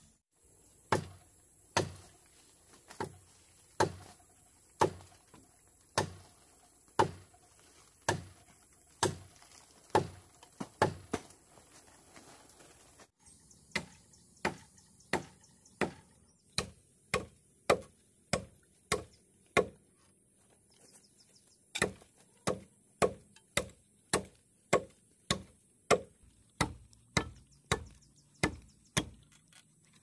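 Steady chopping strikes of a blade into bamboo. They come about once a second at first, then quicker, nearly two a second, in the second half, with a short pause before the last run.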